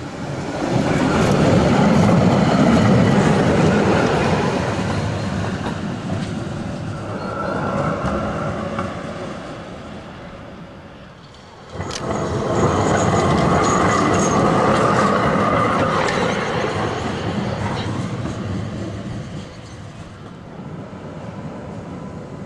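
Trams running on the track, in two separate passes. A tram rumbles by in the first half. After a sudden cut near the middle, a second tram approaches and passes, with a faint high wheel squeal.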